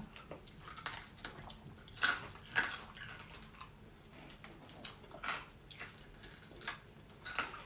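Mouth sounds of eating roasted chicken by hand: chewing, lip smacks and soft clicks while meat is gnawed off the bone, irregular and faint, with a few louder smacks about two seconds in and near the end.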